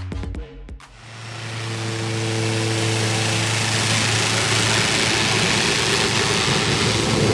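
Air Tractor AT-502XP crop-duster's turboprop engine and propeller running as the plane taxis, a steady low hum under a rushing sound that grows louder. Background music cuts off just before the engine sound fades in, about a second in.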